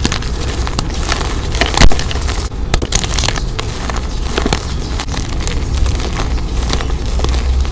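Hands squeezing and crumbling blocks of dyed reformed gym chalk: dense, crackly crunching as the blocks break into gritty pieces and powder. There is one sharp, loud crunch about two seconds in, over a steady low rumble.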